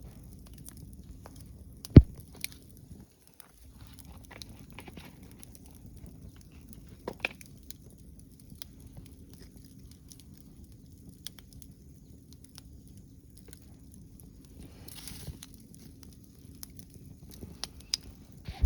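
Wood fire crackling: scattered small snaps and pops, with one loud sharp crack about two seconds in and a brief hiss later on.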